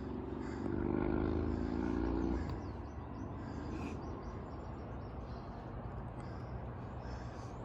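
A motor vehicle's engine hum, loudest over the first couple of seconds and then easing into a steady low rumble, with faint bird chirps.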